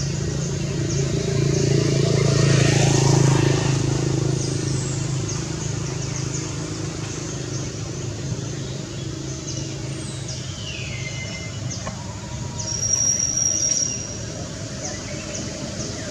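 Road traffic: a steady engine hum that swells as a vehicle passes about two to four seconds in, with short high chirps throughout and a brief falling call and a high steady tone near the end.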